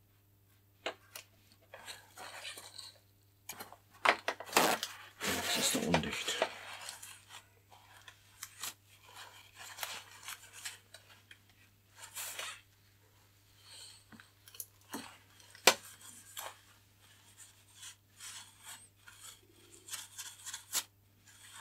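Close handling noises: a paper tissue rubbing and rustling against a composite glider wing and nitrile-gloved hands moving, with scattered light clicks and taps. The longest, loudest rustle comes about five seconds in, over a faint steady low hum.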